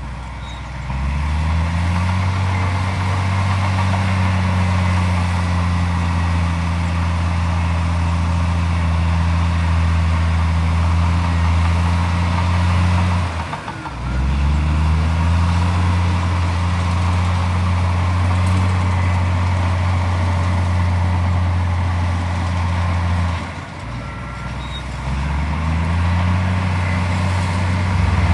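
Komatsu D41P bulldozer's diesel engine working under load: it revs up and holds a steady pitch, drops back briefly about 13 seconds in and again about 23 seconds in, and revs up again each time.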